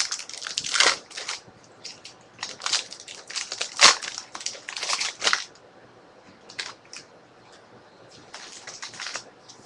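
Trading-card packaging being crinkled and torn open: bursts of sharp plastic-and-foil crackling, with short pauses between.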